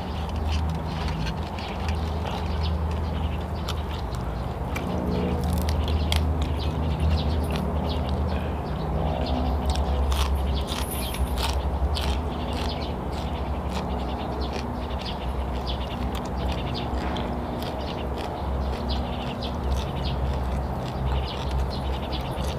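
Close-up eating sounds: chewing with many quick wet clicks and smacks from the mouth, over a steady low hum.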